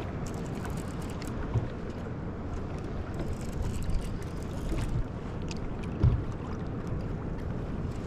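Steady low rumble of water and light wind around an ocean fishing kayak, with a few soft knocks about a second and a half, four, and six seconds in.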